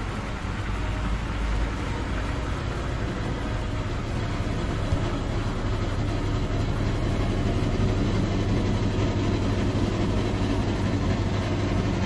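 Whirlpool top-load washing machine spinning its drum fast in the spin-dry stage: a steady motor hum and whir that grows slightly louder.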